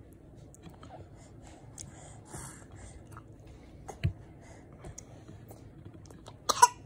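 Baby being spoon-fed rice cereal: quiet mouth and chewing sounds with breathing, a soft knock about four seconds in, and a short louder sound near the end as the next spoonful reaches his mouth.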